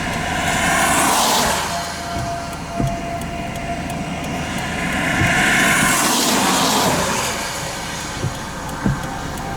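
Two vehicles passing by on the road, one after the other. Each one swells in, peaks and fades away, the first about a second in and the second about six seconds in.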